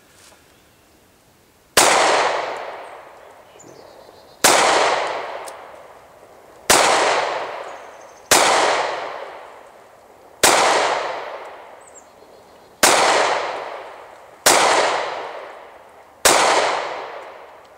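Rock Island Armory 1911 .45 ACP pistol firing eight single shots, spaced about one and a half to two and a half seconds apart. Each shot rings out in a long echoing tail. A full eight-round magazine is emptied without a stoppage.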